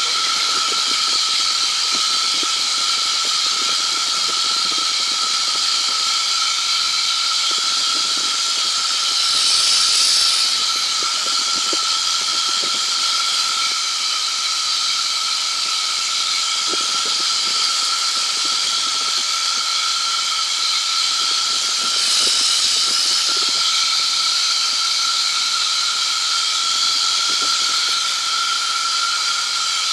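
Steady in-flight noise of a P&M QuikR Explorer microlight trike, its Rotax 912ULS engine and the wind, a hiss with a constant high whine over it. It swells briefly twice, about ten seconds in and again past the twenty-second mark.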